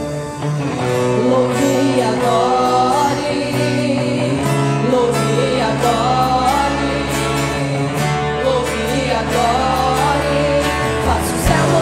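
A girls' choir singing an old hymn, accompanied by electric guitar, acoustic guitar, bass guitar and drums. The voices come in about a second in, over the band, and a few drum hits stand out near the end.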